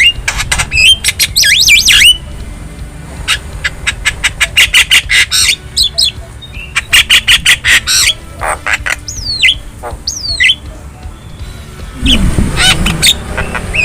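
Javan myna (jalak kebo) calling: harsh squawks and groups of fast clicking rattles, broken by short whistles that slide up and down in pitch.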